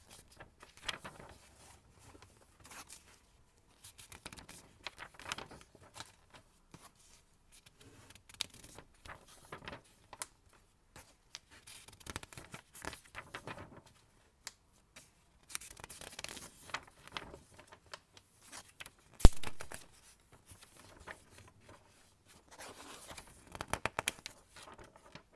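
Pages of a paper instruction booklet being turned and handled, the paper rustling and swishing in scattered bursts. One sharp tap a little past three-quarters of the way through is the loudest sound.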